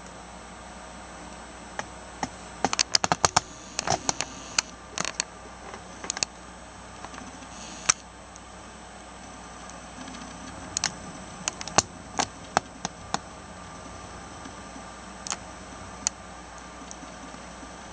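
Handling noise from a handheld camera: irregular sharp clicks and taps over a steady hiss, bunched in two clusters with a few single clicks later.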